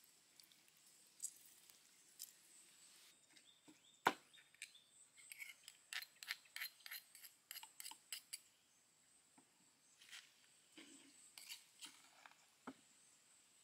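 Metal spoon clicking and scraping against a stone mortar while stirring a thick chili paste: one sharp knock about four seconds in, then a quick run of small clicks for several seconds, and a few more near the end.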